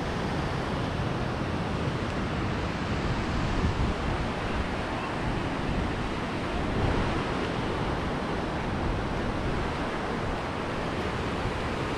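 Steady rushing of water pouring through a dam in strong flow, mixed with rain and wind buffeting the microphone.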